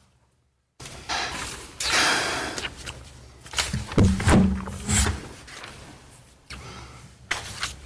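A string of knocks, thuds and rustling handling noise close to the microphone, starting abruptly about a second in after a moment of dead silence, with the loudest thuds around the middle.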